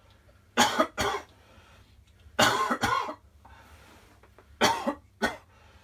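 A person with pleurisy coughs three times in pairs, two short coughs each time, about two seconds apart. The chest is braced with a cushion, which eases the pain of coughing, though the coughs still hurt.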